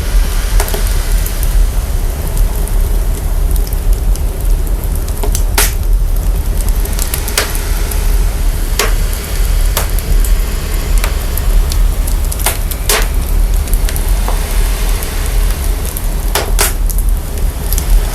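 Wood fire crackling and hissing, its sound processed so that a deep, steady rumble underlies it, with sharp pops from the burning wood every second or two.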